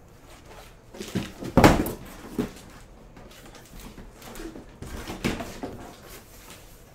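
Cardboard monitor packaging being handled: scrapes, rustles and knocks as the carton is pulled apart and the inner box is lifted out, with the loudest knock a little over a second and a half in.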